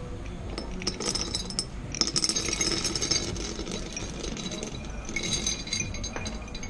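Currants being poured into a container, the berries clicking and clinking against it in two main spells, about two seconds in and again about five seconds in.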